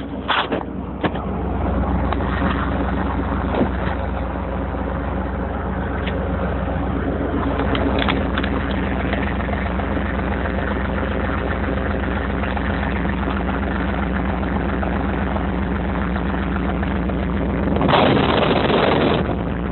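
Truck engine starting after a few clicks, about a second and a half in, then idling steadily. Near the end a louder rush of noise lasts about a second and a half.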